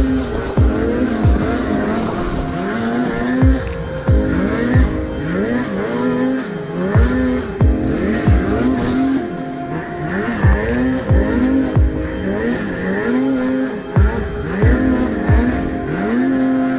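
Snowmobile engine revving hard and falling off over and over as the rider blips and holds the throttle while climbing a snowy slope, its pitch rising and dropping about once a second.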